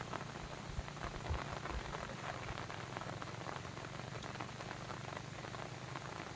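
Steady water sound: a dense run of small drop-like ticks and splashes over a low rumble, as from rain or a babbling brook.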